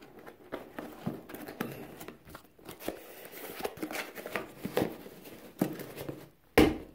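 Cardboard box being handled: scattered scrapes, rustles and clicks, with one loud knock near the end.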